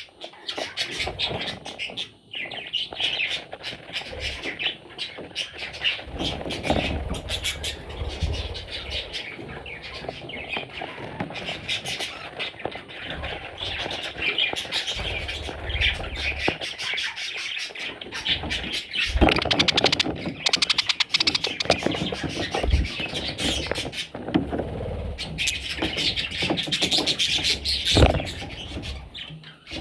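Budgerigars, chicks among them, chirping and chattering continuously in a rapid, busy stream, with a few sharp knocks, the loudest about 19 and 28 seconds in.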